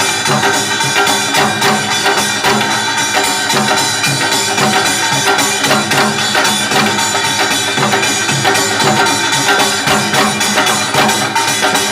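Korean folk music: a janggu hourglass drum beating a quick, steady rhythm over held melodic tones.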